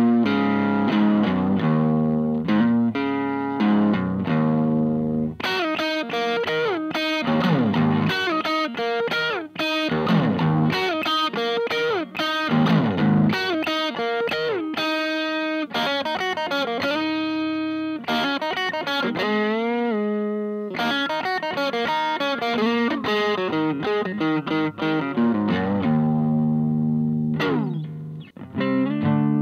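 Stratocaster-style electric guitar played through a 2-watt Little Rebel kit amp into a Jensen CR8 speaker in an old Sunn cabinet: a stream of chords and single-note lines with several string bends. Near the end, a note slides down and the playing thins out.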